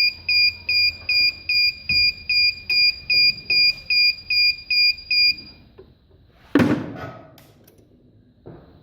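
Electronic buzzer beeping in a fast, even pulse, about two and a half high-pitched beeps a second, which stops about five and a half seconds in. About a second later comes one loud thump, then a faint click near the end.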